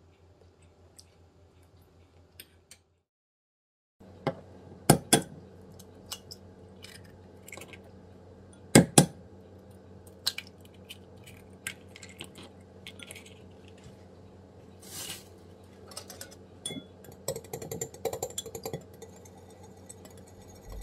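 A fork clinks lightly on a ceramic plate. After a short gap, eggs are knocked against the rim of a glass bowl, in two sharp double knocks, and cracked open. Near the end a wire whisk beats the eggs in the glass bowl with quick, rapid clinks.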